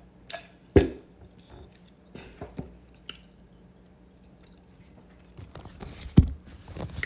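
A glass of iced water being drunk from and set down: a solid knock and small clicks of ice. Near the end, rustling and a sharp thump as the recording phone is handled and moved.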